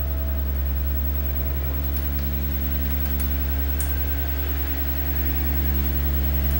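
Steady electrical mains hum with a buzzy stack of overtones from the powered-up repair bench: a running CRT TV and test gear. A few faint clicks come about two, three and four seconds in as the oscilloscope's knobs are turned.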